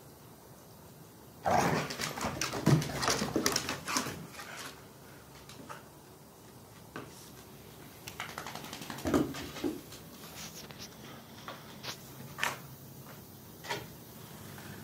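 Dogs play-fighting: a burst of scuffling and dog noises starting about a second and a half in and lasting about three seconds, then scattered scuffles and taps.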